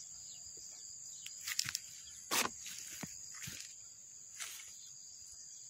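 Insects chirring steadily at a high pitch, with several short rustles and knocks scattered through, the loudest between about one and a half and two and a half seconds in.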